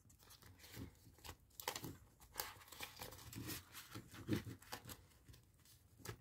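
Faint rustling and crinkling of a clear plastic zipper envelope and paper dollar bills being handled, in scattered short bursts.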